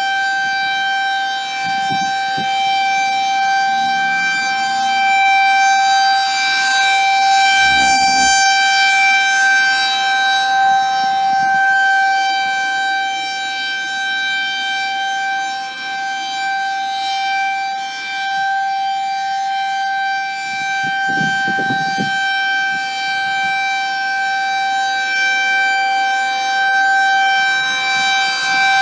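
Federal Signal 2001 electromechanical tornado siren sounding its steady test tone: a single held pitch with many overtones, slowly swelling and fading in loudness.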